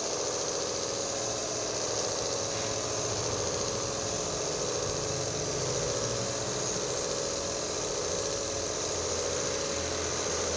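Compressor nebulizer's small motor running with a steady hum over a hiss.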